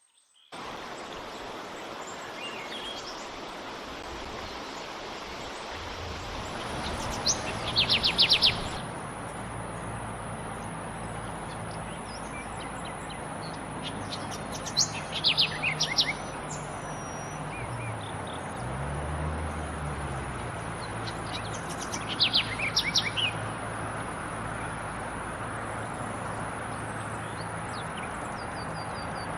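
A wild songbird giving a quick burst of high chirping notes three times, several seconds apart, over a steady outdoor background hiss and a faint low hum.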